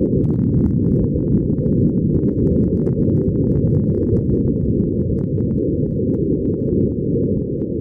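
Steady, dense low rumbling noise with faint scattered crackles over it.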